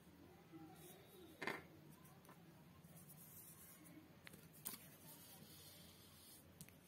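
Near silence with faint paper handling: hands pressing and smoothing a freshly glued sheet of paper flat, with two brief taps, about a second and a half in and again near five seconds in.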